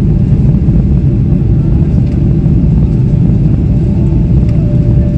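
Jet airliner cabin noise during descent: a loud, steady low rumble of engines and airflow heard from a window seat, with a faint steady whine above it.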